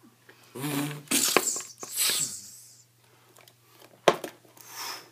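Hissing, whooshing battle sound effects made with the mouth, over a couple of seconds, with sharp clicks of plastic action figures knocking together, one about a second and a half in and one about four seconds in.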